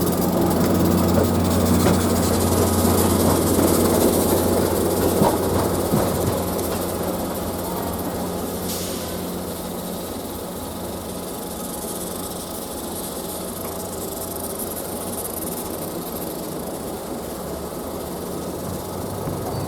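Diesel-hauled passenger train going by: a steady low engine drone with a few clanks, loudest over the first six seconds or so, then fading as the train moves away.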